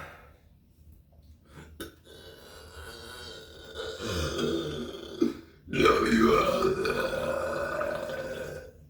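A man burping at length: a long, quieter burp from about two seconds in, then a loud, long belch from about six seconds in that lasts about three seconds.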